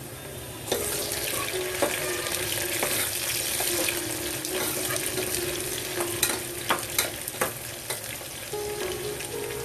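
Sliced onions and green chillies frying in hot oil in an aluminium pressure cooker, sizzling loudly from about a second in, as a spoon stirs them and clicks against the pot several times. The onions are being fried until light brown.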